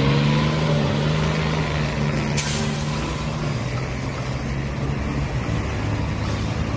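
City bus engines running with a steady low drone, the pitch rising briefly at the start as a bus pulls away. A short hiss about two and a half seconds in.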